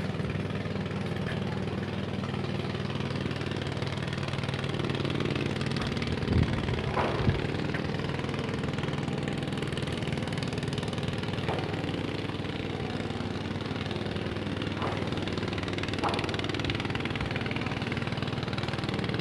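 An engine running steadily with a low hum, with a few short knocks about six to seven seconds in and again later.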